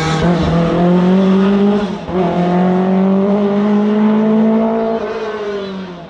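Historic rally car's engine pulling hard, the revs climbing through one gear, a quick gearshift about two seconds in, then climbing again in the next gear. Near the end the revs ease and the sound fades as the car goes away.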